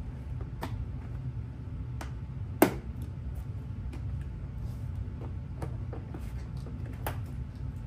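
Scattered clicks and knocks of plastic body panels being handled and worked into place on a dirt bike, with one sharp knock about two and a half seconds in, over a steady low hum.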